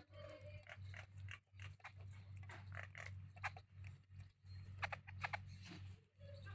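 Small birds making short calls and clicking sounds, over a low steady hum that keeps cutting in and out.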